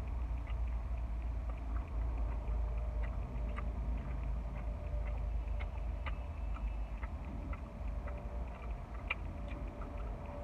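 A person chewing food with the mouth open, a scatter of small wet smacking clicks, over a steady low rumble.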